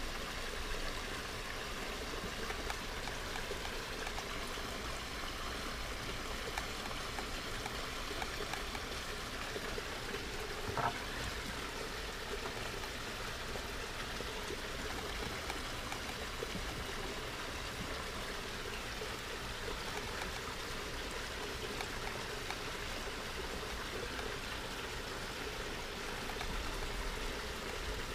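Steady, even rushing noise like running water, with a single light tap about eleven seconds in.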